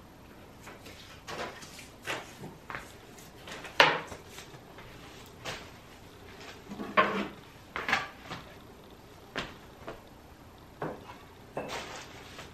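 Scattered knocks, taps and clatter of household objects being handled and set down, the loudest knock about four seconds in and a cluster of them around seven to eight seconds.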